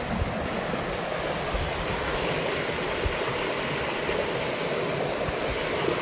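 Fast, shallow stream rushing and splashing over boulders: a steady rush of water.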